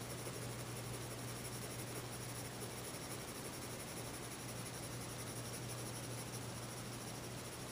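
Pencil scribbling and shading on sketchpad paper: a steady scratchy rasp over a constant low hum.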